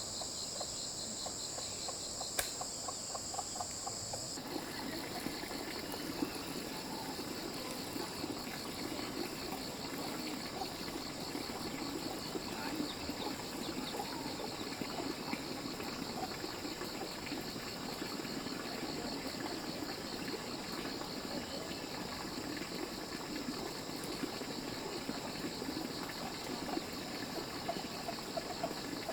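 Steady high-pitched insect chorus of crickets or cicadas, with a fine pulsing trill. About four seconds in, a busier jumble of lower-pitched noise joins it.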